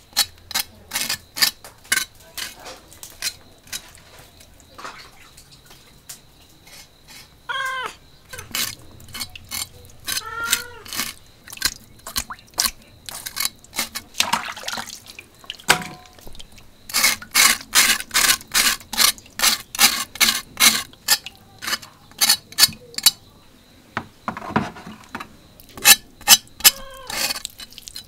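Steel cleaver blade scraping the hair off a piece of pork skin in quick rasping strokes, about three a second, coming in runs with short pauses, the meat held over a bucket of water.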